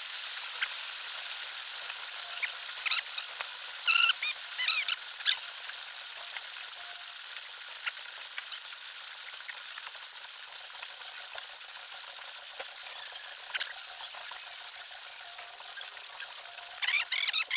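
Steady hiss of pouring rain, with a metal spoon and fork clinking and scraping on ceramic plates several times, mostly about three to five seconds in and again near the end.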